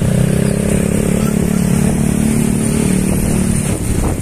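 Motorcycle engine running at a steady pitch amid road traffic, its note fading out near the end.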